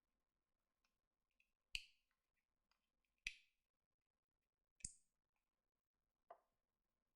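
Near silence broken by four short, sharp clicks about a second and a half apart, the last one fainter.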